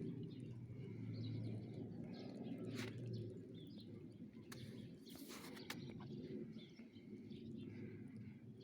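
Birds chirping faintly over a steady low hum of street ambience, with a few sharp clicks.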